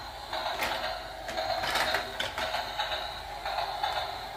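Battery-powered plastic toy train's motor and gears whirring as it drives along, with a click about every half-second.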